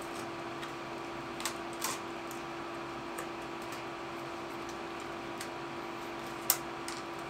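Plastic clicks and taps from the folding arms of a DJI Mavic Mini drone being swung open by hand: a few short clicks, the sharpest near the end, over a steady hum in the room.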